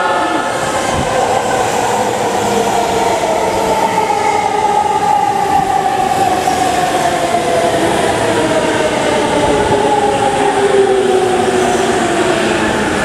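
JR East E231 series 800-subseries electric train pulling into the station and braking. Its inverter-driven traction motors give a whine that glides steadily down in pitch as it slows, over the steady rumble of the wheels on the rails.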